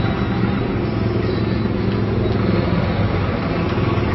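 A vehicle's engine running steadily, heard from on board the moving vehicle, with road and traffic noise around it.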